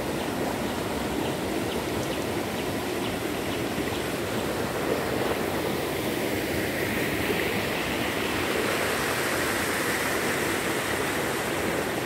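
Rain-swollen, muddy river rushing past a bridge, a steady sound of fast water that grows a little louder about halfway through. The river is running high after heavy rain, with water flowing over the top of the bridge.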